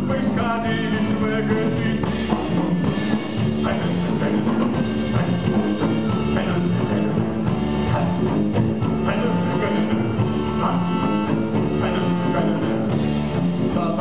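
A live band playing a song with drum kit, guitar and clarinet, at a steady level throughout.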